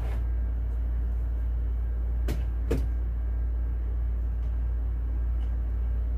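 Two short plastic clacks about half a second apart as the lid of a Kuppet twin-tub portable washing machine is lifted, over a steady low hum.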